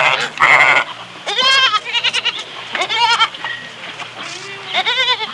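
Goats bleating: two rough, breathy calls in the first second, then several quavering bleats, some overlapping.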